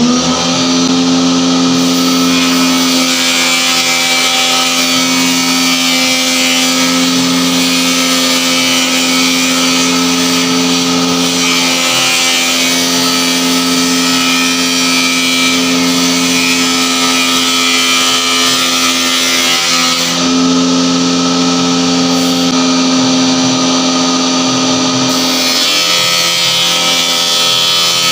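Electric woodworking machine motor running at a steady pitch, with a whining hum and a hiss over it. The pitch sags briefly near the end.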